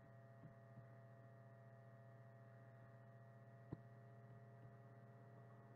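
Near silence with a steady low electrical hum, and a single faint computer mouse click a little past halfway.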